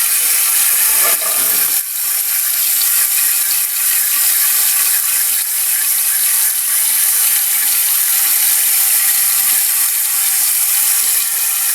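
Water hissing and rushing steadily through a Fluidmaster 400A fill valve as a toilet tank refills, the supply valve opened fully.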